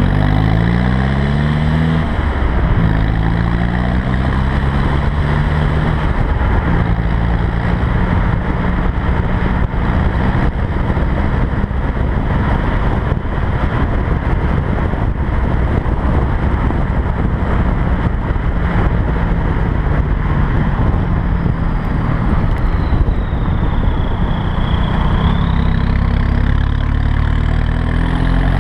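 Straight-piped, side-exit exhaust of a 2003 VW Jetta TDI's 1.9 L four-cylinder turbodiesel, driving. In the first couple of seconds it revs up through two quick gear changes, then runs at a steady cruise with road noise underneath. About two-thirds of the way in, a high turbo whistle dips and rises in pitch, and near the end the engine revs up again.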